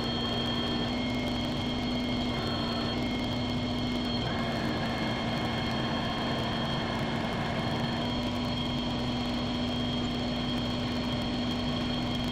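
Old engine lathe running: a steady machine hum with a thin high whine as the chuck spins a long steel rod.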